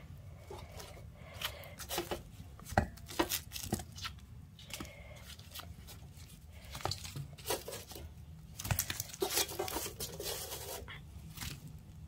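Baked potatoes being set one at a time into a metal bowl onto a tin plate: irregular light knocks and scrapes of potato on metal, with rustling from the handling.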